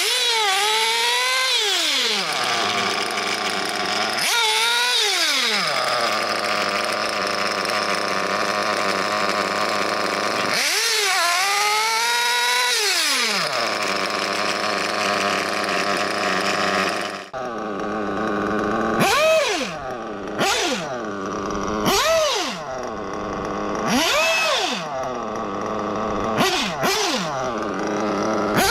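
Nitro RC buggy's two-stroke glow engine running at high revs, its pitch dipping and recovering three times. About two-thirds of the way in, it changes to the buggy driving, the engine revving up and falling back every couple of seconds.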